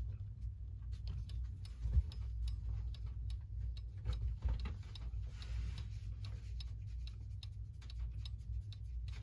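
Hermle pendulum clock movement ticking while it is being nudged into beat, aiming for an even tick-tock. A brief rustling noise about halfway through.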